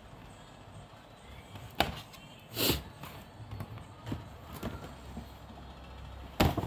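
Stiff paper shopping bag rustling and crinkling as it is handled and cut open with a small pocket knife. There are a few sharp clicks and one louder crinkle about two and a half seconds in.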